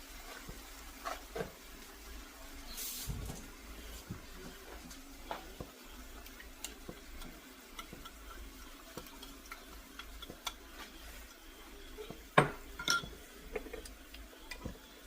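Kitchen utensils clinking and scraping against cookware as chicken wings are stirred in sauce: scattered light knocks, with one sharp knock about twelve seconds in.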